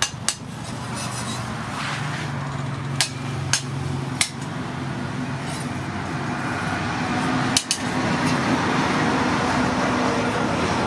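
Five or six sharp metallic clinks of steel tongs and iron handled at the forge and anvil, over a steady mechanical hum that slowly grows louder.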